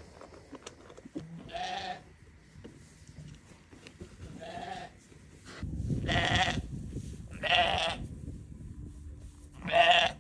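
Sheep bleating: about five separate calls, each around half a second long and spaced one to three seconds apart, the last near the end the loudest. A low rumble runs beneath from about halfway through.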